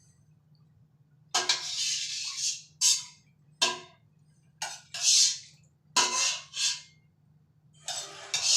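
Cooking noises from a pan: about seven short hissing, scraping bursts, each starting sharply and fading within a second.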